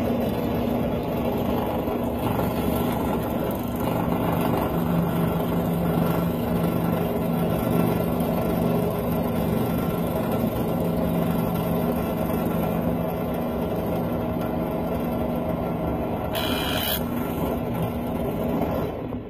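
Central Machinery 5-speed bench drill press running with a steady motor hum as a 1/8-inch bit is fed through a silverware ring into the wooden mandrel beneath. A brief higher hiss comes near the end, then the motor shuts off.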